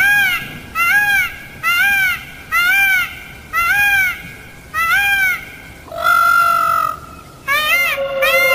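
Peacock (Indian peafowl) calling loudly: a run of short arched calls about once a second, one longer held call about six seconds in, then quicker calls near the end.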